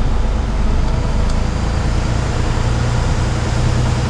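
Heavy truck's diesel engine running, heard from inside the cab as the truck moves off at low speed: a steady low drone that strengthens a little in the second half.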